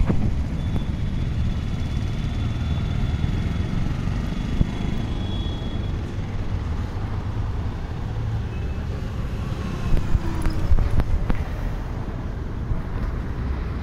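Steady low rumble of road traffic on a city street, with a few clicks and bumps about ten seconds in.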